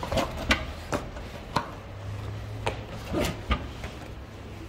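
A string of light, separate clicks and taps as baked choux éclair shells are lifted off a perforated silicone mat on a metal baking tray with a plastic scraper and set down on a granite counter.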